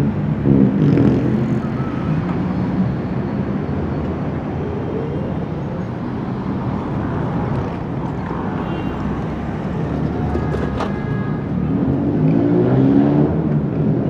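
Heavy city street traffic: a steady rumble of car and bus engines and tyres, with an engine passing close near the end and a brief knock about three quarters of the way in.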